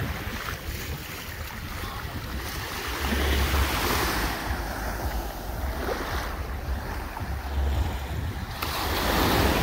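Small waves lapping and washing up onto a sandy shore, swelling and easing, with gusts of wind rumbling on the microphone.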